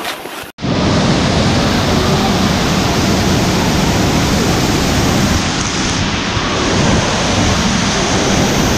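Steady, loud rush of falling water, like a waterfall pouring close by. It starts abruptly after a brief cut about half a second in.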